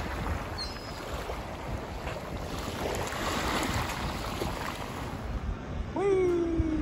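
Small waves washing onto a sandy beach, with wind on the microphone. About six seconds in, the drone of a paramotor's engine cuts in, its pitch sagging slowly.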